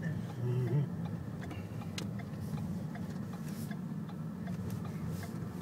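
Steady low hum of a car's engine and tyres, heard from inside the cabin while driving, with a few faint clicks.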